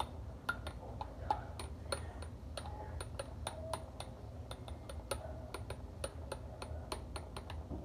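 Light taps on a clear drinking cup, many short sharp clicks at an uneven pace, several a second, played as a homemade rhythm.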